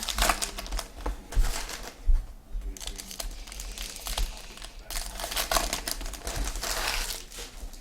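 Trading card pack wrappers being crinkled and torn open, with cards handled, in several bouts of crackling.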